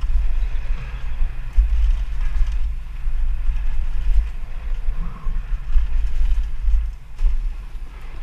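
Mountain bike rolling fast down a dirt trail: wind buffeting the microphone over the rumble of tyres on packed dirt, with a couple of sharp knocks from the bike over bumps.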